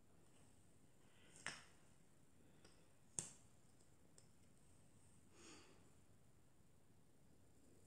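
Near silence in a small room, broken by two small sharp clicks about a second and a half apart and a soft breath about five and a half seconds in.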